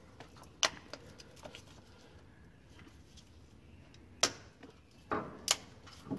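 Plastic wiring-harness connector being pushed together by hand and latched: a few sharp clicks, the loudest about four and five and a half seconds in, as the connector snaps securely into place.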